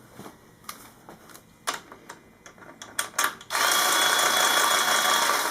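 Light metal clicks and taps as a motorcycle's rear axle and chain adjuster are worked into line, then about three and a half seconds in a loud, steady whirring noise for about two seconds.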